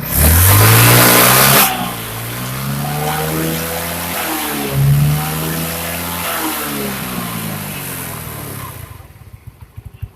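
Yamaha Mio scooter's single-cylinder engine being revved: a loud throttle blip at the start and a shorter one about five seconds in, the engine speed rising and falling between, then settling to a quieter idle near the end. It runs without the earlier grinding from the CVT area, now that the kick-starter shaft no longer rubs the crankshaft.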